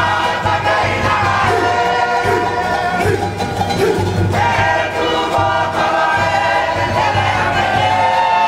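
Cook Islands kapa rima action song: a group of voices singing together in chorus, holding and bending long notes over a steady low pulse of accompaniment.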